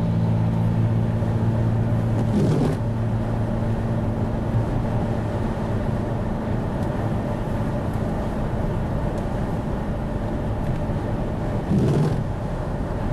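Car driving, a steady engine hum under road noise, with two brief louder noises, one about two and a half seconds in and one near the end.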